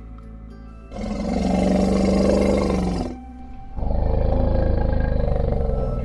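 Two loud, rough roars of a large animal, the first about a second in lasting about two seconds, the second starting just after it and running about three seconds, over soft instrumental music.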